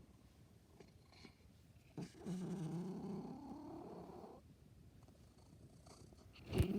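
Domestic cat making a low, drawn-out vocal noise, about two seconds long, starting about two seconds in; near the end a sharp knock and then the start of another such call.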